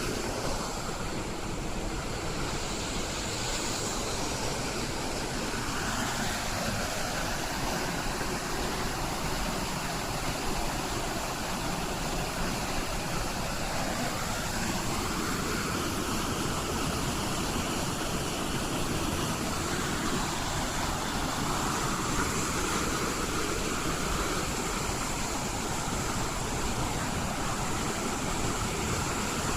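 Fast whitewater rushing steadily, an even, unbroken wash of noise.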